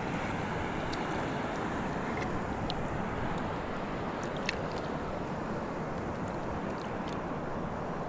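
Steady wash of sea water and wind around an inner-tube float at sea, with a couple of faint clicks partway through.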